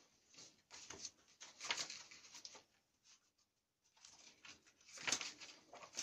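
Soft rustling with many small clicks and knocks in a small room, in two spells of about two seconds each with a short quiet gap between them.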